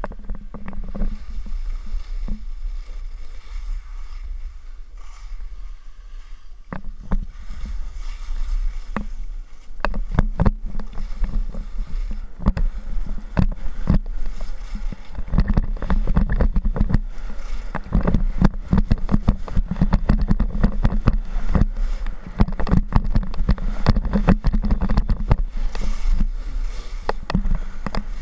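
Skis running and scraping over packed snow, with wind rumbling on the action camera's microphone and many sharp knocks and chatter. The sound is lighter at first and grows louder and busier from about ten seconds in.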